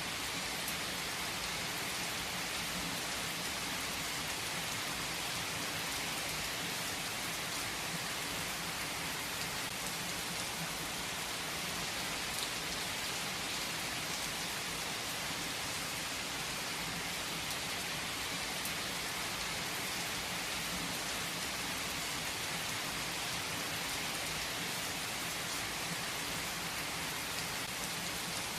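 Steady rain falling: an even, unbroken hiss with scattered sharper drop ticks.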